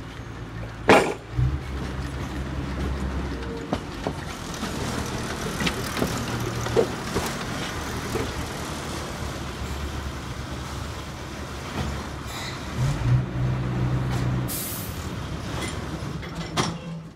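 The diesel engine of the Botchan Ressha, a replica steam locomotive, running steadily and rising for a couple of seconds late on. There is a loud sharp noise about a second in and a short hiss of air near the end.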